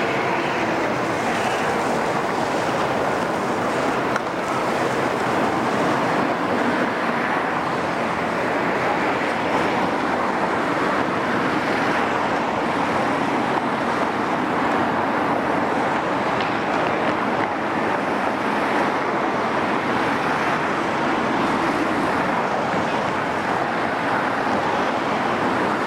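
Caterpillar M322C wheeled excavator's diesel engine and hydraulics running steadily at working speed, an even, constant drone without distinct knocks.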